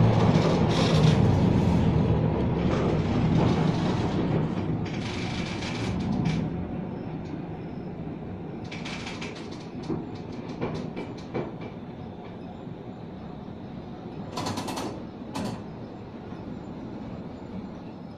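Museum tram M 24 running on street track, heard from inside the wooden car: a steady rumble that fades over the first few seconds, then scattered clicks and knocks, and two short noisy bursts near the end.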